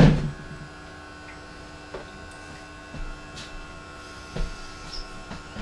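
Philips masticating juicer's electric motor running with a steady hum. A sharp knock at the very start is the loudest sound, followed by a few lighter knocks and clunks.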